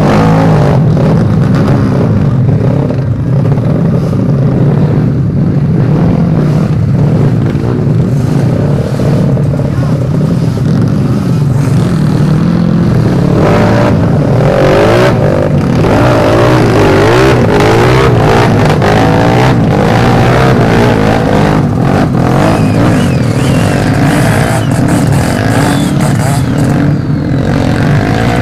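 Trail dirt-bike engines running and revving, loud and continuous, their pitch rising and falling.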